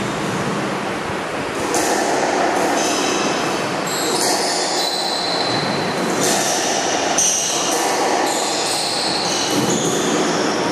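Squash rally: court shoes squeaking in short high-pitched squeals on the wooden floor, with the sharp smacks of the ball off rackets and walls. The squeaking starts about two seconds in and keeps coming through the rally.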